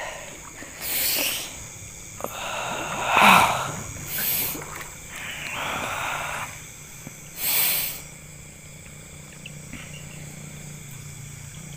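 A man's forceful, hissing breaths, about five short bursts, the loudest about three seconds in, over a faint steady low hum.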